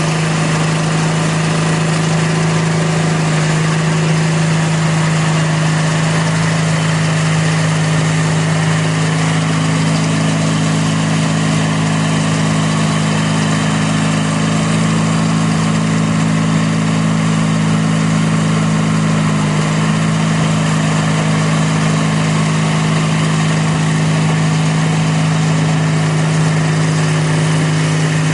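The Sears GT18 garden tractor's 18 hp Briggs & Stratton horizontal twin running steadily under load, driving its shaft-driven 42-inch snowblower as it throws snow.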